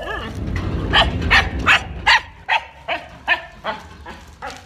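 A dog barking over and over, about three barks a second, the barks getting quieter after about two seconds. A low rumble of handling on the microphone under the first couple of seconds.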